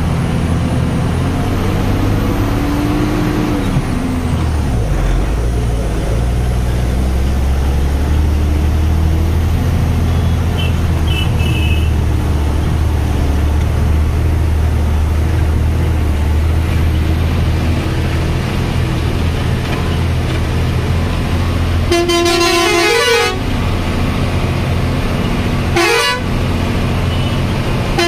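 Heavy truck's diesel engine running steadily under way, heard from inside the cab as a low drone. A horn sounds for about a second around 22 seconds in, with shorter toots near 26 seconds and again at the end.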